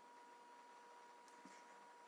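Near silence: faint background hiss with a thin, steady high tone, and a couple of faint ticks about two-thirds of the way through.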